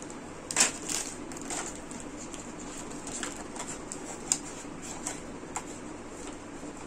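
Cardboard boxes, a plastic packaging tray and a hair clipper being handled on a table: scattered rustles, taps and clicks. The sharpest click comes about half a second in, and another a little past four seconds.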